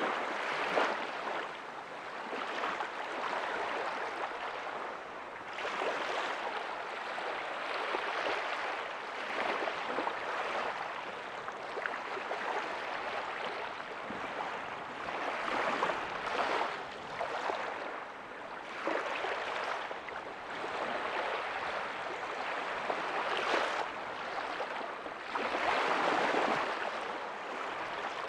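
Small waves breaking and washing up a beach, a steady surf hiss that swells and eases every few seconds.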